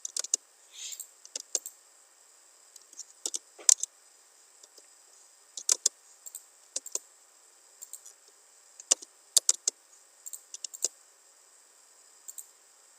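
Irregular clicks of a computer mouse and keyboard, often in pairs or quick clusters, over a faint steady high hiss.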